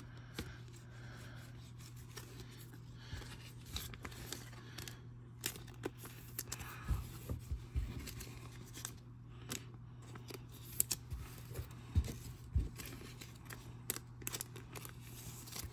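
Trading cards being handled: cards sliding and flicking against one another in a stack and a card being slipped into a soft plastic penny sleeve, heard as faint scattered clicks and rustles. A steady low hum runs underneath.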